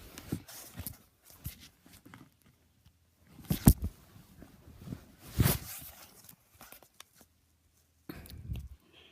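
A sleeping dog snoring, with uneven snores every two to three seconds.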